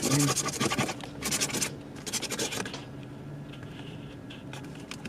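A coin scratching the coating off a scratch-off lottery ticket in quick rasping strokes. There are three bursts in the first half, then quieter scraping.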